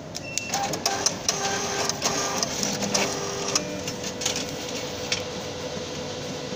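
Foil Pokémon booster-pack wrapper crinkling and tearing as it is opened and handled, rapid crackles that thin out about five seconds in, over a steady hum.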